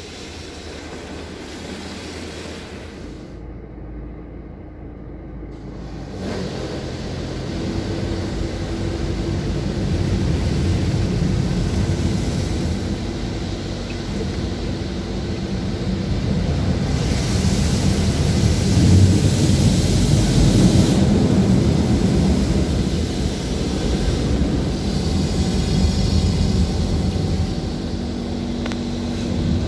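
Automatic car wash heard from inside the car's cabin: a steady rumble of the wash machinery and water spraying against the body and windows, growing louder about six seconds in.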